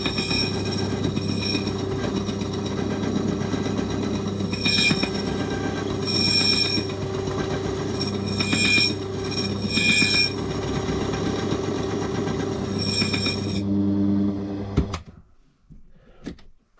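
A motor-driven cutter runs steadily, cutting into a lever safe key blank. A high ringing squeal comes in bursts each time the cutter bites the metal. The motor is switched off and runs down about fifteen seconds in.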